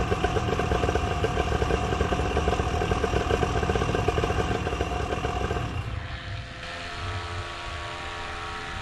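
Vittorazi Moster two-stroke paramotor engine running with its propeller turning, a fast, pulsing chug. About six seconds in it gives way to a quieter, steady drone.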